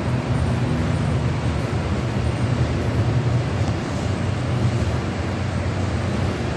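Steady low rumble of an HO scale model train running on the layout, its cars rolling past close by.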